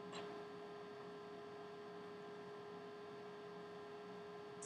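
Steady electrical hum with a faint hiss of room tone, and a soft tick just after the start and another near the end.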